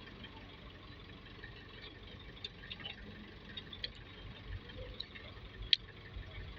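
Faint steady background noise with scattered light clicks and taps, and one sharp click near the end.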